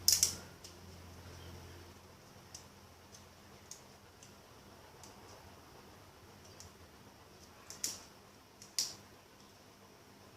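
Plastic Beyblade base being worked by hand, its parts pulled and pushed to set the gimmick. A sharp click at the start, scattered light ticks, then two louder clicks near the end.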